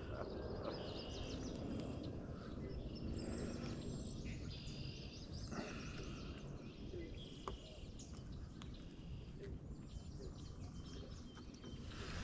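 Outdoor ambience: a steady low wind rumble with scattered short bird chirps.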